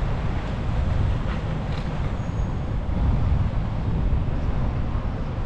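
Steady city traffic noise heard while riding a bicycle, with a constant low rumble from wind on the microphone.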